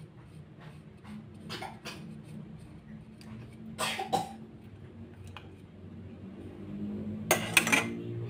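Wooden spatula knocking and scraping against a metal wok of chicken in broth: a few light clicks, then two short clusters of sharp clacks, about four seconds in and near the end, over a low steady hum.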